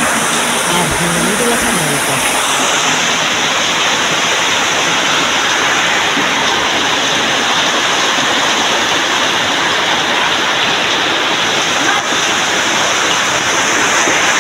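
Floodwater rushing in a loud, steady rush, with a faint voice in the first couple of seconds.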